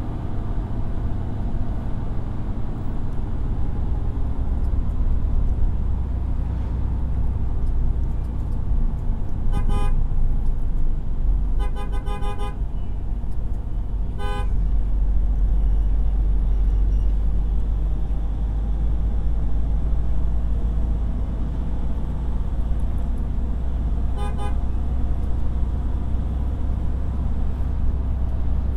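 Steady engine and road rumble of a moving vehicle heard from inside it, with short horn toots: one about ten seconds in, a quick run of toots around twelve seconds, another near fourteen seconds and one more near twenty-four seconds.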